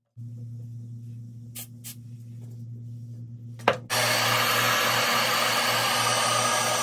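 A low steady hum with a few light clicks, then just under four seconds in a sharp click and a Berta hair dryer starts blowing, a loud steady rush of air.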